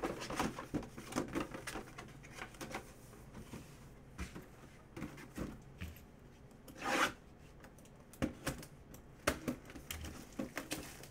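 Shrink-wrapped cardboard Leaf autographed mini-helmet boxes being handled and moved on a table: scattered light knocks and rubbing, with one longer rustle about seven seconds in.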